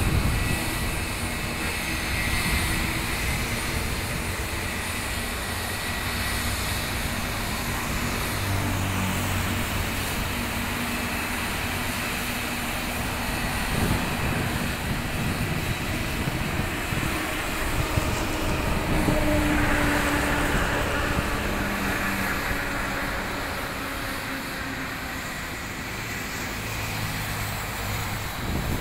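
Jet engines of Air India Airbus A320-family airliners running steadily at low power on the ground, a constant rumble with a thin high whine; the engines hold steady and do not spool up.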